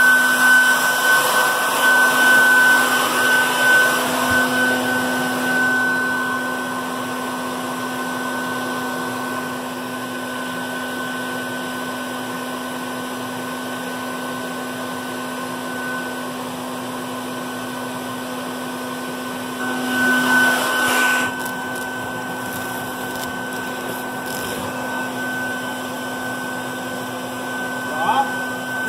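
Bee vacuum (Colorado Bee Vac) running steadily with a hum, sucking honey bees off the comb through its hose. It is louder for the first few seconds and again briefly about twenty seconds in.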